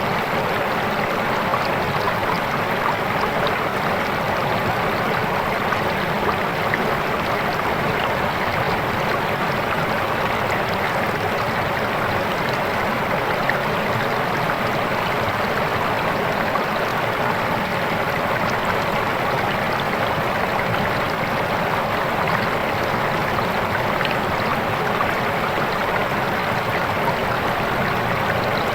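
Fast, clear river water rushing and splashing over rocks, a steady, unbroken flow.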